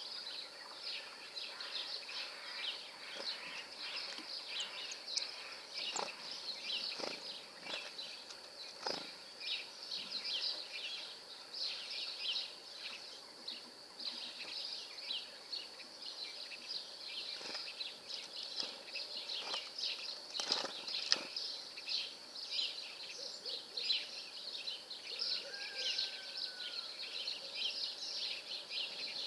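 Many small songbirds chirping and twittering without pause, with a few short soft knocks in between.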